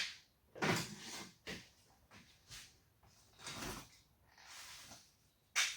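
Rummaging through storage for a boxed set of casters: irregular rustles, scrapes and clunks as things are shifted, with a sharp knock near the end.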